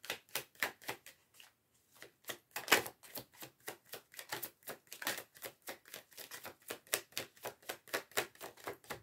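A deck of oracle cards being shuffled by hand: a fast run of soft card slaps and clicks, about four to five a second, with a short pause about two seconds in.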